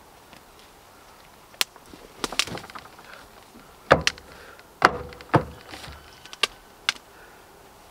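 Compost being dug and tossed by hand with a long-handled shovel onto a load in a truck's aluminium-sided cargo bed: a run of about seven sharp knocks and scrapes, the two loudest near the middle.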